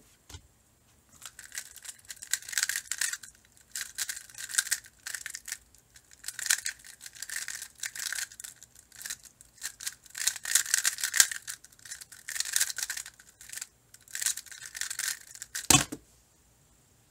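Plastic Square-1 puzzle turned fast in a speedsolve: rapid bursts of clacking and rattling as the layers twist and the slice flips, broken by short pauses. About 16 s in, a single thump as the puzzle is set down on the desk.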